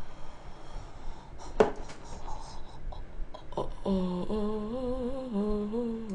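A woman humming a low, wavering tune for a few seconds in the second half, after two short clicks.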